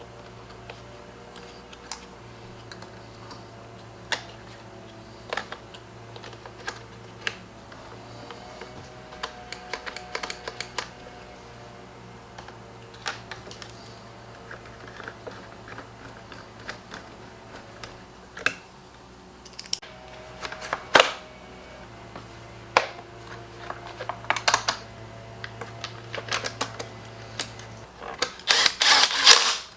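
Light, scattered clicks and taps of plastic blower parts and small screws being handled during reassembly of a Husqvarna 125B leaf blower, with a quick run of louder clicks near the end. A steady low hum runs underneath.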